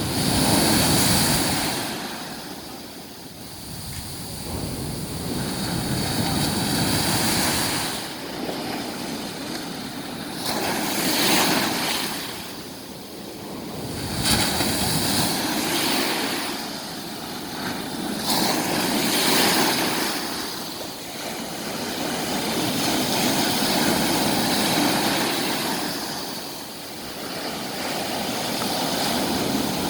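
Sea waves breaking on the shore, the surf swelling and falling back every few seconds.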